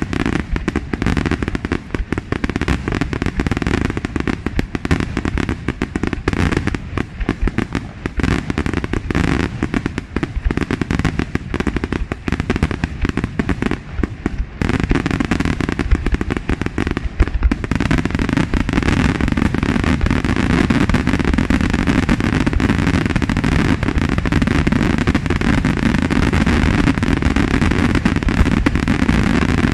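Aerial firework shells bursting in rapid, overlapping succession with crackling. About halfway through the bangs thicken into a louder, near-continuous barrage.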